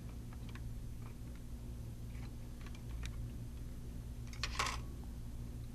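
Faint, scattered clicks of plastic laptop parts being handled as the drive housings come off, with a louder brief clatter about four and a half seconds in, over a steady low hum.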